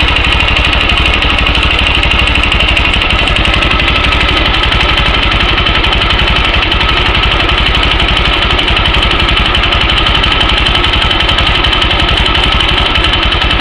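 Yamaha YBR125's single-cylinder four-stroke engine idling steadily with a rapid, even pulse, carrying the knock in the engine that the owner is demonstrating as a fault.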